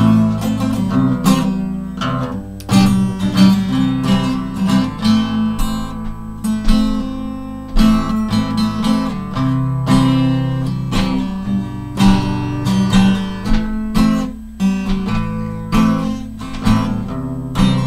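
Acoustic guitar strummed in a steady rhythm, chords ringing between the strokes.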